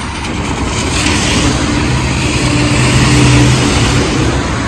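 A car going past on the wet road, its tyre hiss swelling and fading, over a steady engine hum.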